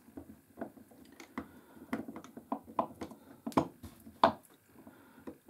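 Screwdriver working a small Phillips screw out of the metal side cover of a Shakespeare 2700 spinning reel: light, irregular clicks and ticks, a few a second, with two sharper clicks past the middle.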